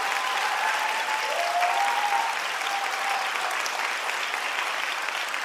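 Theatre audience applauding a finished ballet solo, a dense steady clapping that slowly thins. A few voices call out over the clapping during the first few seconds.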